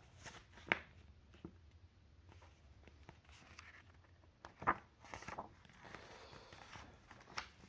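Quiet handling of a picture book: two brief clicks, then soft paper rustling as a page is turned near the end.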